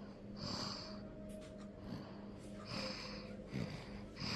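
Baby snoring in sleep: slow breaths about every two seconds, each with a high hiss, and a short low snort between them.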